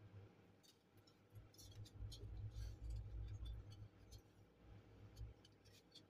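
Faint handling noise of parts being worked on a tabletop: scattered small clicks and taps, with a dull low rumble from about one and a half to five seconds in as the finned heatsink is picked up and handled.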